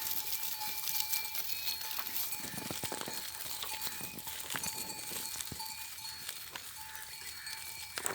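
Bells on grazing livestock ringing on and off in a steady jingle, with scattered clicks and rustles of the animals moving and feeding.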